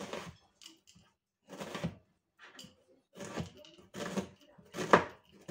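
Kitchen knife chopping an onion on a cutting board: about six short knocks of the blade striking the board, irregularly spaced roughly a second apart, the loudest near the end.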